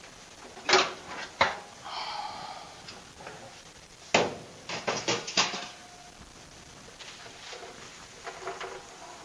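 Clatter of hard objects being handled: several sharp knocks, a quick run of clacks about five seconds in, and short scraping sounds between them.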